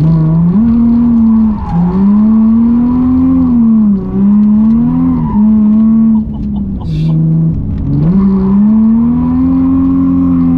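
Nissan 350Z's 3.5-litre V6 running hard through its reworked exhaust, revving up and easing off over and over, with short drops in pitch between pulls. It holds a lower note for about a second past the halfway point, then climbs again and stays high near the end.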